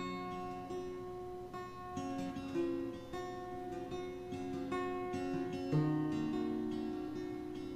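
Background music: an acoustic guitar intro, ringing notes over chords that change every second or so.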